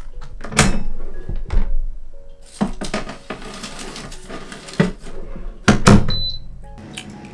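An air fryer being loaded and started: several knocks and clunks as the wire tray goes in and the door is shut, the loudest about six seconds in, then a short high beep from the controls. Near the end its fan starts running with a steady hum.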